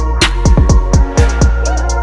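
Background music with a heavy electronic beat: deep kick drums, ticking hi-hats and a quick run of drum hits in the middle.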